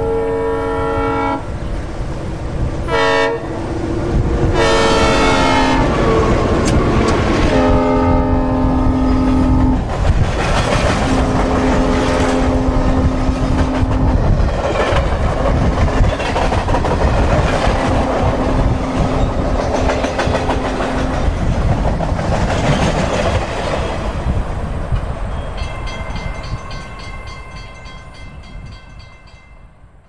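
Synthesized recreation of a Nathan M3 diesel locomotive horn sounding a series of blasts as a train passes. The horn's pitch slides down partway through from the Doppler effect, and later blasts sound lower, over the rumble of the passing train, which fades away near the end.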